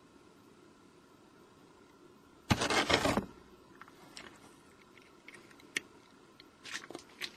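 A cat's paw and body scraping and rustling against a cardboard box and corrugated plastic board as it reaches through a hole for a dry treat: one loud scrape lasting under a second about two and a half seconds in, then scattered small clicks and scratches.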